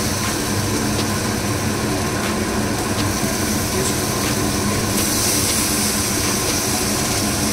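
A steady, machine-like rushing hum, like a motor or fan running, with its hiss growing brighter about five seconds in.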